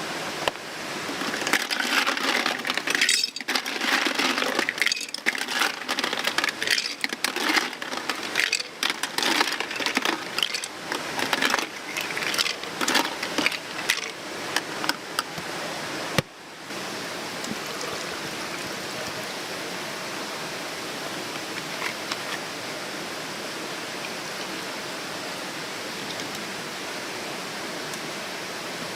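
Irregular clinking and clattering of small hard objects over a steady rushing hiss. The clatter stops abruptly about sixteen seconds in, leaving only the even rushing noise.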